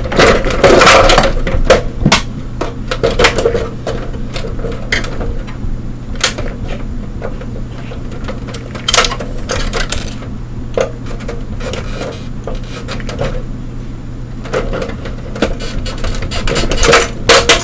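Irregular clicks, snaps and knocks of the Blueberry iMac G3's hard plastic covers and inner structure being pried and worked loose, over a steady low hum.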